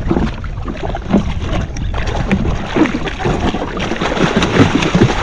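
Wind on the microphone and water sloshing around a jet ski at sea, with a steady low rumble and scattered short knocks and splashes.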